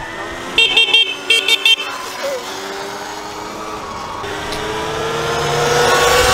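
Segway X260 electric dirt bike's horn tapped in a quick run of short beeps about a second in, then the bike's electric motor whine, rising slightly in pitch with tyre hiss, growing louder as it comes up close.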